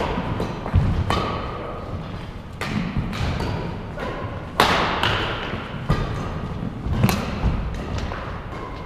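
A series of sharp knocks or impacts at an irregular pace, about six in all, each ringing on briefly after it. The loudest comes about halfway through.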